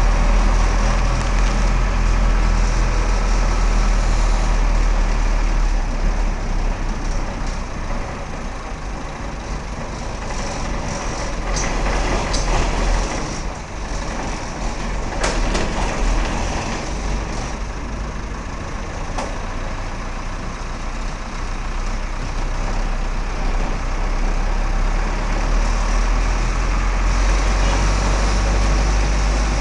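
Engine and cabin noise of a bus driving slowly along a city street, heard from inside the cab, with a deep steady engine hum. The engine eases off through the middle, when a few sharp knocks and rattles come, and builds again towards the end.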